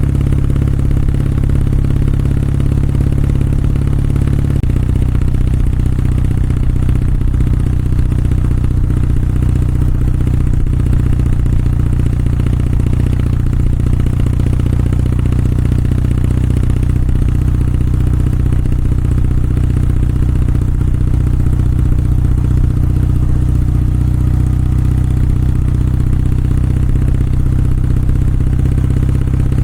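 Kawasaki W650's air-cooled parallel-twin engine and exhaust running steadily while riding, the engine note shifting about four and a half seconds in.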